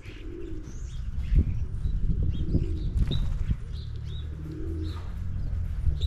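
Mourning dove cooing: three low soft coos about two seconds apart, with small songbirds chirping briefly and high over a steady low rumble.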